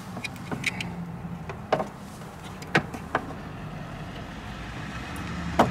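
Scattered clicks and knocks as a car's windshield wiper linkage arm is handled and pushed onto its ball joint at the cowl, with a sharper click near the end. A steady low hum runs underneath.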